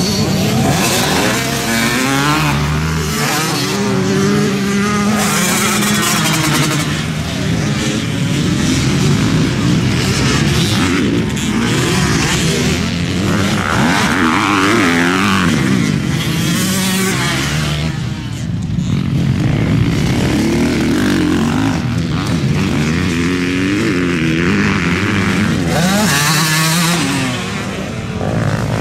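Motor vehicle engine running hard, its pitch rising and falling over and over as it revs up and down through the gears.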